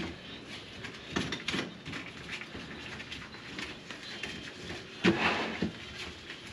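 Scattered light knocks and rattles of gloved hands working the brass drain trap under a kitchen sink, opening up a drain clogged with food and grease.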